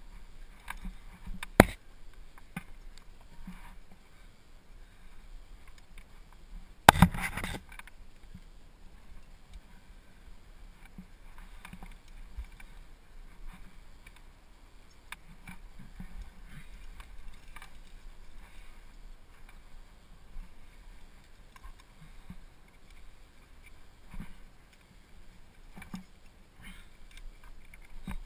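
A rock climber's movement heard through a helmet-mounted camera: hands, shoes and clothing scraping and rustling against the rock, with small knocks throughout. There is a sharp knock about a second and a half in and a louder, brief bump about seven seconds in.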